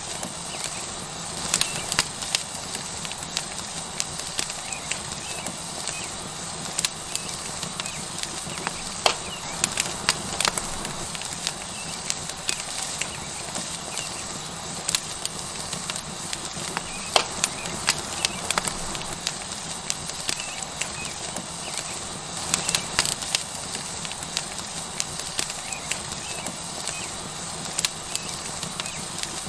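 Tomahawk steak sizzling on a hot rock over a wood fire: a steady sizzle with frequent sharp, irregular crackles and pops from the burning wood.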